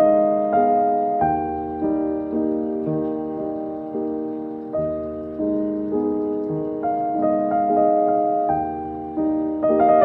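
Background piano music: gentle notes and chords struck every half second or so, each left to ring and fade.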